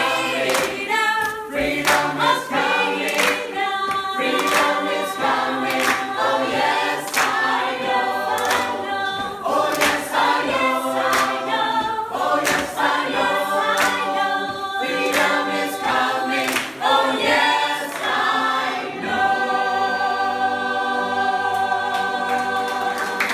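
A mixed choir of men and women singing unaccompanied, with hand claps keeping a steady beat. About nineteen seconds in, the clapping stops and the choir holds a long final chord.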